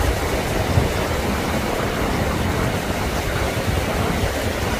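Wind buffeting the microphone over the steady wash of breaking surf, a continuous rushing noise with a heavy, fluttering low rumble.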